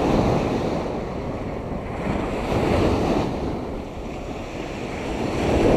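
Surf breaking on a sandy beach and washing up the sand, swelling at the start, again about halfway through and once more near the end, with wind buffeting the microphone.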